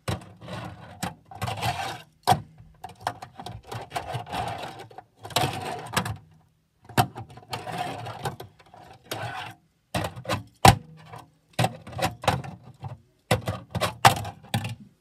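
Plastic clicking, clacking and scraping from a Tech Deck fingerboard and its plastic ramp pieces being handled. Many sharp clicks are mixed with stretches of rattly scraping that last about a second each.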